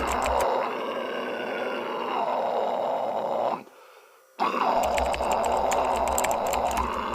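Fry scream: a harsh, raspy distorted voice held on drawn-out vowels, a controlled metal vocal technique rather than a hoarse cough. It breaks off for a moment about three and a half seconds in, then starts again.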